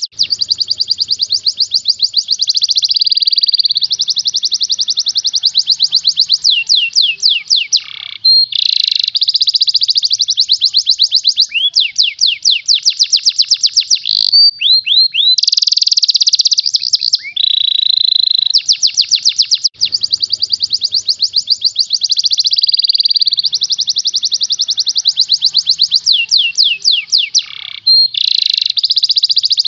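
Domestic canary singing a long, fast song of tightly packed trills and rolls, high-pitched and almost unbroken, with only a few short pauses.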